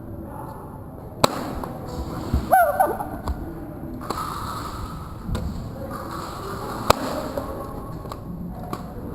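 Scattered airsoft gunfire: a sharp single crack about a second in and another near seven seconds, with fainter pops between. A brief wavering cry sounds about two and a half seconds in.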